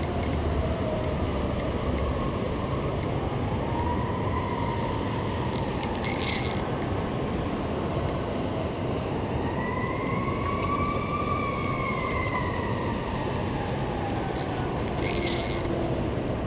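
Spinning reel cranked and clicking as a hooked fish is reeled in against the current, over steady rushing river water. A faint tone slowly rises and falls in pitch in the background.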